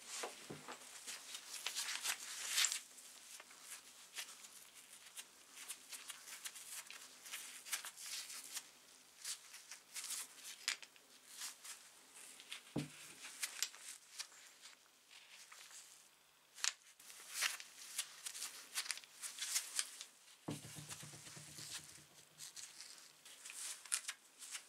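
An old, rusty two-speed hand drill being handled with gloved hands: irregular metallic clicks, rattles and scrapes of its crank, gears and chuck. There is one knock about halfway through.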